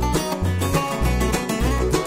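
Acoustic bluegrass band playing: banjo, mandolin, dobro and acoustic guitars picking quick notes over an upright bass keeping a steady two-beat.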